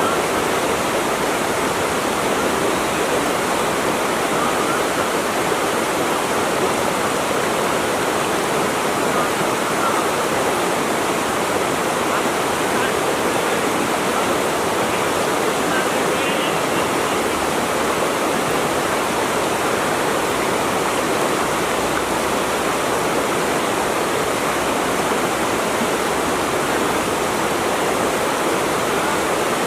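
Flowing water rushing steadily, an even, unbroken splashing hiss with no pauses.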